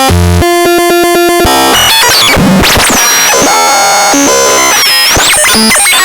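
Loud, chaotic electronic intro music: synthesizer tones, stuttering repeated notes and sweeping pitch glides.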